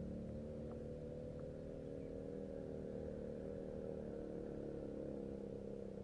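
Steady low hum of a running motor, with two faint ticks about a second in.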